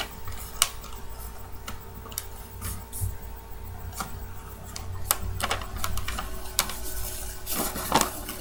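A sheet of paper being folded and creased by hand: scattered sharp crackles and taps, busier in the second half, over a steady low hum.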